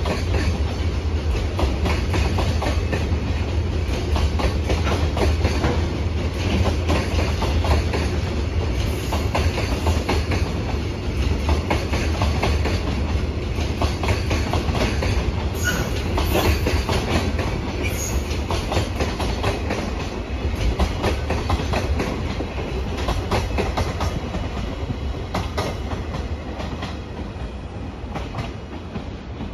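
Long freight train of container flatcars rolling past, a steady low rumble with the wheels clattering over rail joints; it fades over the last few seconds as the end of the train pulls away.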